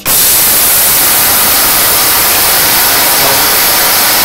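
Electric mixer grinder starting suddenly and running steadily, its steel jar grinding roasted urad dal, coriander seeds, cumin, dry red chillies, mint and drumstick leaves into a coarse powder.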